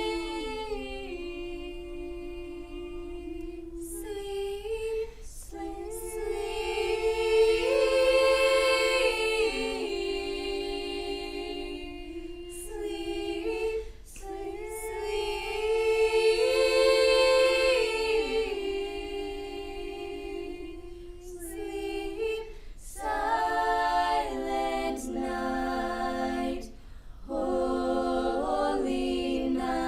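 Choir singing a cappella in slow, long-held chords, with short breaks between phrases; the sound grows fuller, with lower voices joining, in the last few seconds.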